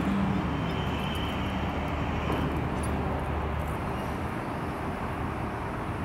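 Outdoor road-traffic noise: a steady low rumble of vehicles that eases off about three and a half seconds in, with a few faint clicks.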